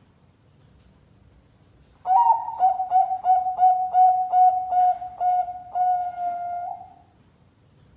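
Zebra dove (Bangkok perkutut) cooing: after a couple of seconds of quiet, a quick run of about a dozen short clipped coos that ends in one longer drawn-out coo.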